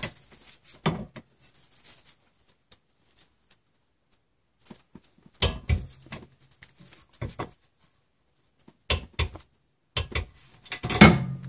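Torque wrench with a socket tightening the 14 mm caliper bracket bolts on a car's rear brake to 41 foot-pounds. Scattered sharp metallic clicks and knocks with quiet between, louder about five and a half seconds in and again near the end.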